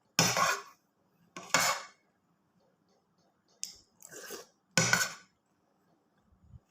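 A spoon scraping against a dish, four short scrapes of about half a second each, with a brief click between the second and third.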